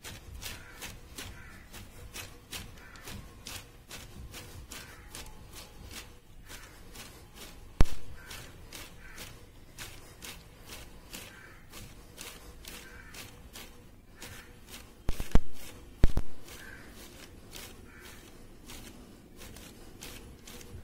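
Spencer-type rotary microtome's mechanism clicking steadily, about three sharp clicks a second, as the specimen holder is worked forward. There is a loud sharp knock about eight seconds in and three more in quick succession around fifteen to sixteen seconds in.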